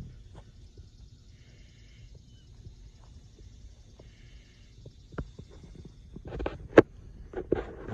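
Outdoor ambience: a steady high insect buzz and a bird's short call repeated three times. In the last two seconds comes a run of sharp knocks and thumps from footsteps and handling close to the microphone.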